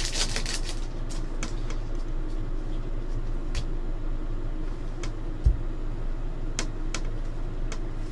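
Steady low room hum, with scattered light clicks of trading cards being handled and one dull thump about five and a half seconds in.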